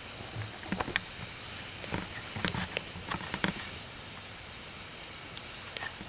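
Small wood campfire crackling, with scattered sharp pops over a steady hiss, as a canteen cup of water boils in the flames.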